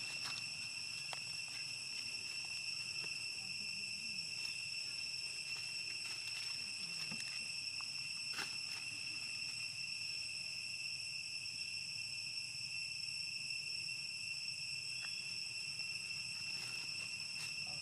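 Steady high-pitched insect chorus droning on one unchanging pitch, over a faint low hum, with a few faint ticks.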